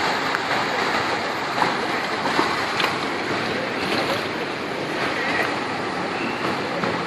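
Heavy rain pouring steadily, an even hiss with scattered faint taps of drops.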